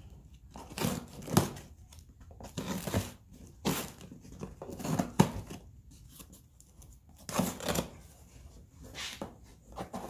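Packing tape being slit and torn off a cardboard shipping box, heard as a series of short tearing sounds at irregular intervals.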